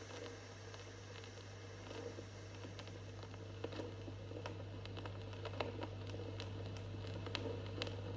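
Vinyl record surface noise: a faint hiss with scattered crackle clicks over a steady low hum, growing slowly louder.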